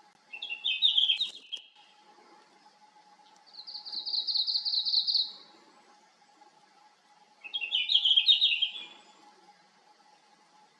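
Red-flanked bluetail singing: two short warbled song phrases, one about half a second in and one near the end, with a faster, higher trill between them. A faint steady hum runs underneath.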